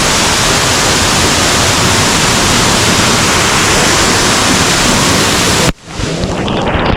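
Waterfall close to the microphone: a loud, steady rush of falling water. It cuts off suddenly near the end, and gusty wind-like rumble on the microphone follows.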